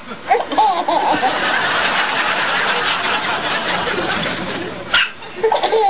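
A baby sneezes once, sharp and short, about five seconds in, and brief chuckling follows each sneeze (also just after the start, after a sneeze a moment before). A steady hiss of background noise runs underneath.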